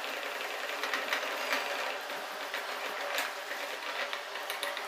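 Wooden spatula scraping and clicking against a metal pot as a thick masala is stirred, over a steady sizzle of the spices frying in oil.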